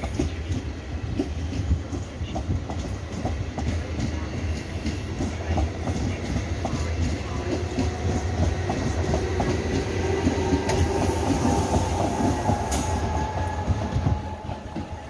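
Trenord double-deck regional train rolling through the station, a steady low rumble with wheels clicking irregularly over rail joints and points. A whine and a hiss swell from about nine seconds in, peak a few seconds later, then ease off near the end.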